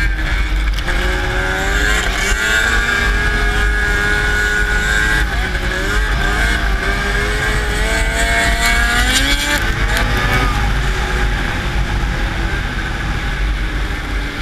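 Racing snowmobile engine running hard at high revs. Its whine glides up and down as the throttle is worked.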